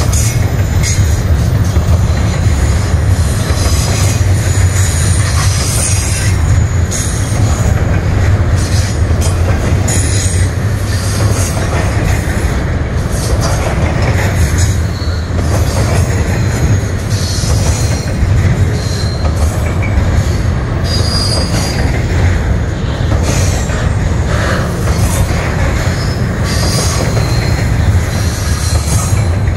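Double-stack intermodal freight train's well cars rolling past: a steady loud rumble of steel wheels on rail, with scattered brief high-pitched wheel squeals.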